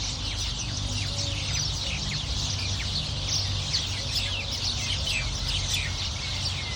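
A chorus of small birds in trees, many short falling chirps overlapping continuously, over a steady low rumble.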